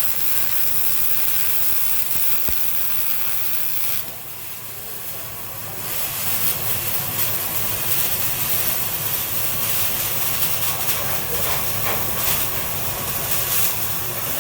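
MIG welding arc running on steel plate: a steady crackling hiss as a bead is laid. It breaks off about four seconds in and starts again about two seconds later for the next bead.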